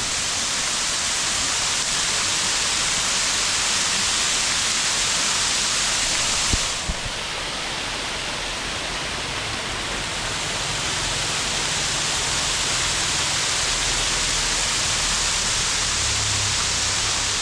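Waterfall water rushing with a steady, loud hiss. There is a brief knock about a third of the way in, after which the rush is slightly softer.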